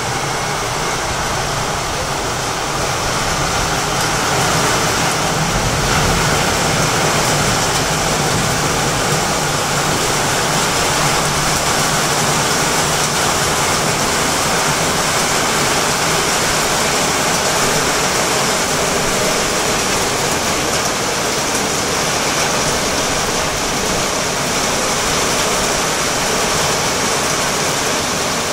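Torrential rain pouring steadily, a dense, even hiss of falling water with no let-up.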